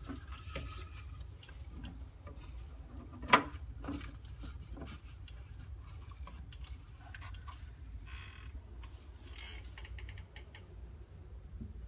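Scattered light clicks and taps over a low steady hum, with one sharp, loud click about three seconds in.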